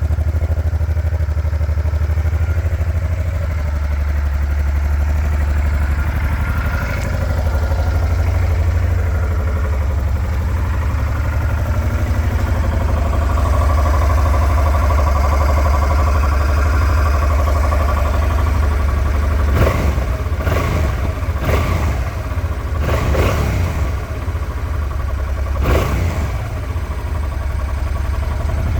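Honda Transalp 700 (XL700V) V-twin engine on its stock exhaust, idling steadily. From about twenty seconds in it is given several quick throttle blips.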